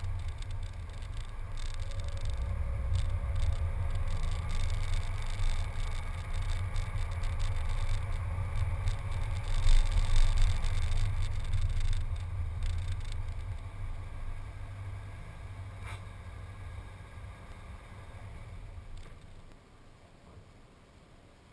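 Low, uneven rumble of a car driving slowly, picked up through a camera mounted on its hood. It fades over the last several seconds as the car pulls in and stops, and a short knock comes right at the end.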